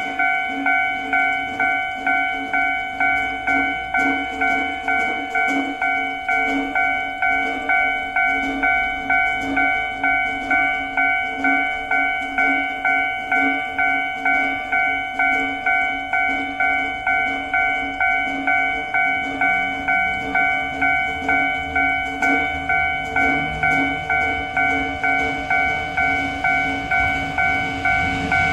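Japanese railway level-crossing warning bell ringing steadily, about three dings every two seconds, a bell-like tone that sounds like festival practice; it signals an approaching train, whose rumble grows near the end.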